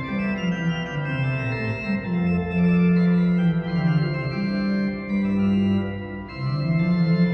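Juget-Sinclair continuo organ, a small pipe organ, playing slow held chords, the notes changing every second or so over a moving bass line.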